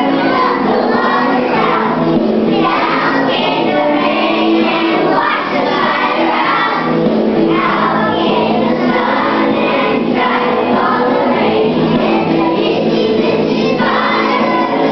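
A group of young children singing along with music.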